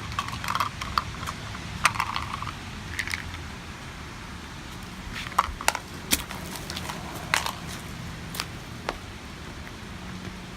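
Objects in a bag being smashed with a sledgehammer: a dozen or so irregular sharp cracks and crunches of breaking material, with a low steady rumble underneath.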